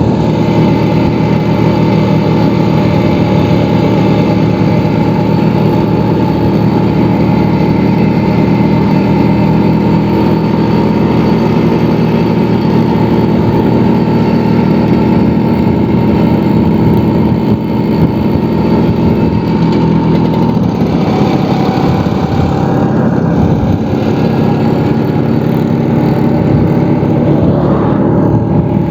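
Vespa scooter engine running steadily under way, its note changing a little about two-thirds of the way through.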